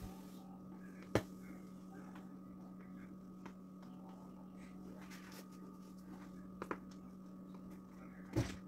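Steady low electrical hum in a small kitchen, broken by a sharp knock about a second in and a few softer clicks and knocks near the end from handling the piping bag and cake.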